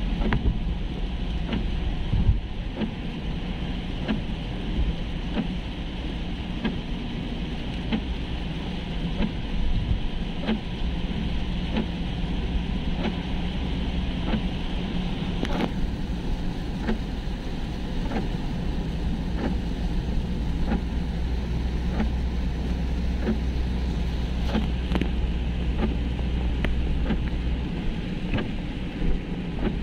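Car driving in rain, heard from inside the cabin: steady road and tyre hiss on the wet road with a low drone that grows stronger from about ten seconds in until near the end. Frequent light ticks of rain strike the windscreen.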